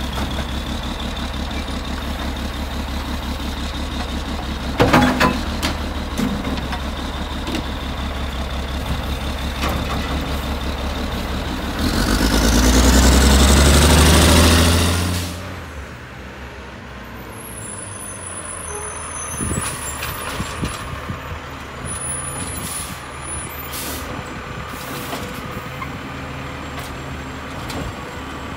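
Condor garbage truck with a McNeilus Autoreach side-loading arm running at the curb, with a sharp bang about five seconds in. About twelve seconds in a loud rising whine builds for three seconds and cuts off suddenly, after which the truck runs more quietly with a few small knocks.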